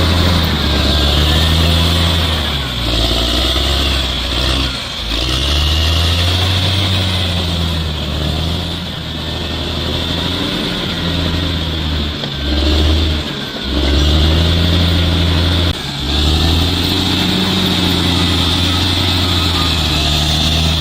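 Bulldozer's diesel engine working hard, its pitch rising and falling again and again as it takes and sheds load, with a few brief drops in loudness along the way.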